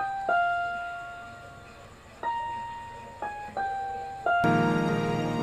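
Yamaha PSR-38 portable keyboard playing a slow melody of single notes, each one struck and left to fade. About four and a half seconds in, a louder, fuller sound with many lower notes comes in.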